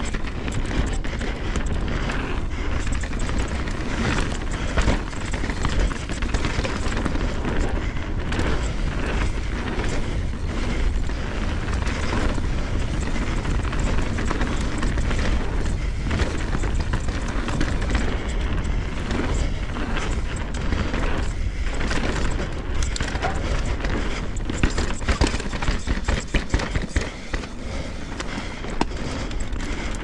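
Mountain bike riding fast down a dirt trail, heard from a GoPro on the rider: steady wind rush and tyre noise, with frequent knocks and rattles as the bike hits bumps.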